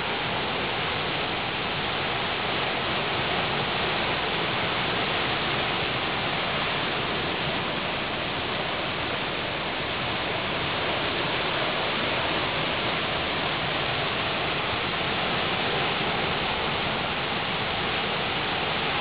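Fast river rapids rushing and churning below a rock ledge: a steady, even roar of whitewater.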